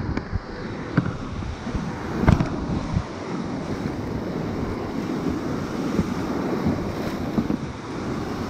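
Ocean surf washing and churning in the shallows, with wind buffeting the microphone. There are a couple of short knocks, about one and two seconds in.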